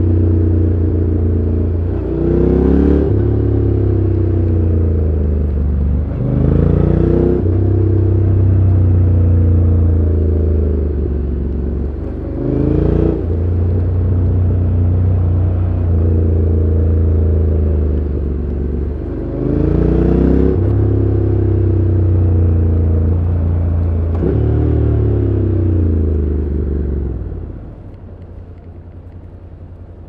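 Honda NC750X's 745 cc parallel-twin engine on its stock exhaust, heard onboard while riding. The revs rise and drop several times through the ride, and the engine goes much quieter near the end as the throttle closes.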